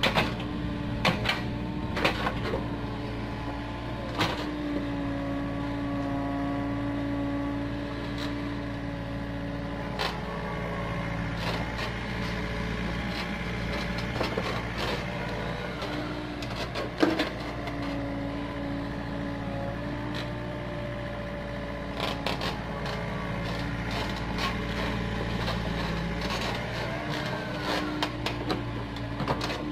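Komatsu PC45 mini excavator's diesel engine and hydraulics running steadily while it digs, with a tone that swells and drops away several times as the boom and bucket work. Sharp knocks and clanks from the bucket and linkage come now and then, the loudest about seventeen seconds in.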